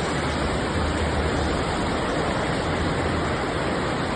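Fast-flowing floodwater rushing: a steady, even noise of water with no let-up.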